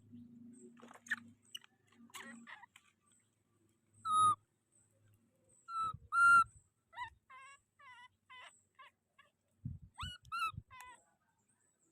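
Baby monkey crying with shrill, whistle-like calls. Loud calls come about four and six seconds in, then a run of short falling chirps, and a last cluster of calls near the end.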